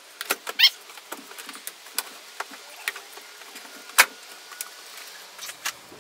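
Scattered plastic clicks and knocks from an NB Mazda MX-5's dashboard and its HVAC connectors as it is unplugged and worked free by hand. There is a short rising squeak of plastic near the start and one sharp knock about four seconds in.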